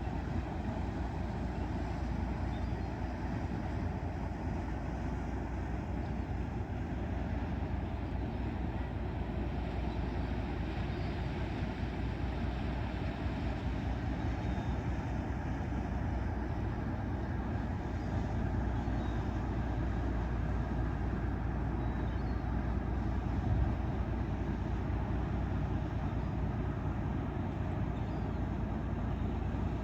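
Steady low drone of a passing ship's engine, even and unchanging throughout.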